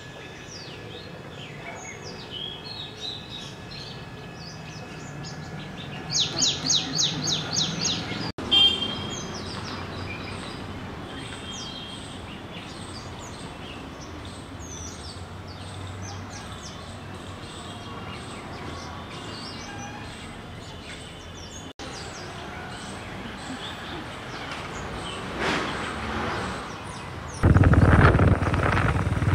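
Birds chirping and calling, with a loud run of quick repeated calls about six to eight seconds in. Near the end the sound jumps suddenly to a Royal Enfield motorcycle being ridden, its engine and road noise much louder than the birdsong.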